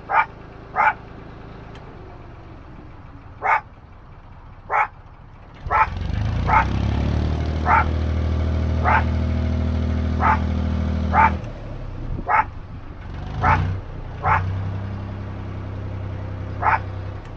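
A dog barks about a dozen times, sharp single barks a second or so apart, at the noise of the narrowboat's diesel engine, which it is not used to. The engine runs steadily underneath and is louder for several seconds in the middle.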